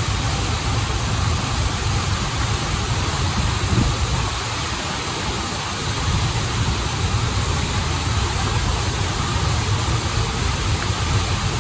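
Running water of a river stream and small waterfall: a steady, even rushing.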